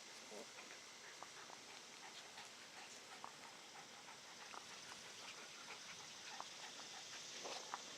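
Puppies moving about: faint scattered ticks and rustles over a steady hiss.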